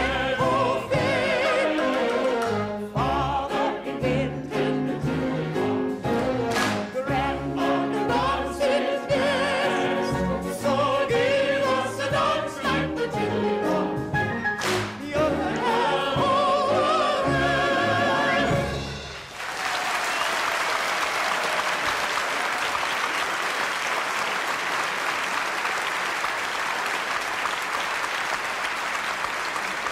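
An operatic-style lead singer and mixed chorus sing a bouncy music-hall song with piano, with sharp group hand claps on the beat. About two-thirds of the way through the song ends and a theatre audience applauds steadily.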